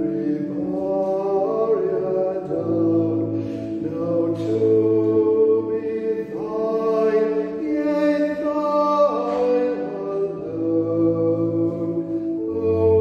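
Church organ playing a slow hymn in held chords that change about once a second, with a few voices singing along.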